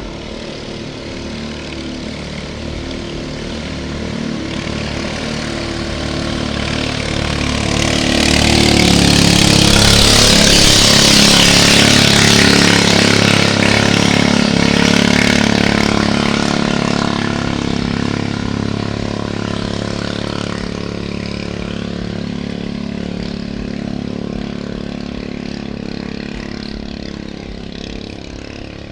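Motorboat engine running steadily, growing louder to a peak about ten seconds in with a rushing hiss over the engine note, then slowly fading.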